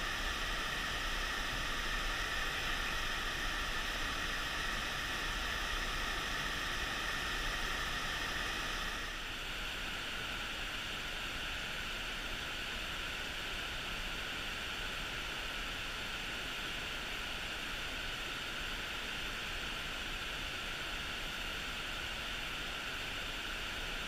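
Steady rushing of a mountain stream, which changes abruptly in tone and drops a little in level about nine seconds in.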